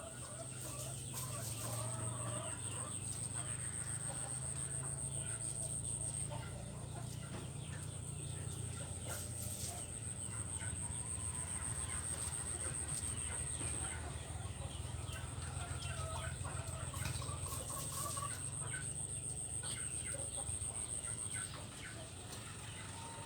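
Chickens clucking with short, repeated calls, over a steady low hum and a steady high-pitched whine that breaks off a few times.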